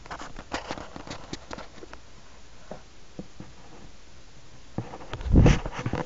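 Handling noise against a plastic pet enclosure: a quick run of light clicks and taps, then scattered knocks, with a louder bump and rustle about five seconds in.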